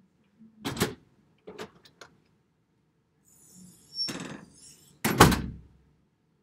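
A few handling knocks and thumps: a knock just under a second in, three light clicks, a rustle past halfway, then the loudest, heavy thump near the end.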